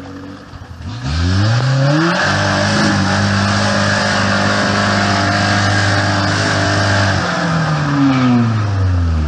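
Off-road 4x4's engine revving up about a second in and held at high revs for about five seconds, then dropping back with a short blip of throttle near the end.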